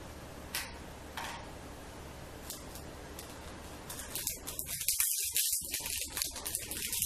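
Silicone beads and a plastic bead box being handled: soft rustles early on, then from about halfway a dense run of quick, light clicks and rattles.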